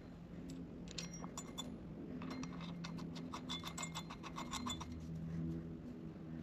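Faint metallic clinking and clicking of hand tools and bolts on engine parts, a quick run of clicks in the middle, over a steady low hum.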